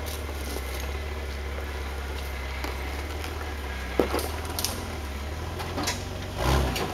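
Jeep Wrangler's engine running low and steady as it crawls over rocks, with a few sharp knocks and a louder thump about six and a half seconds in as the tyres and chassis climb onto the ledge.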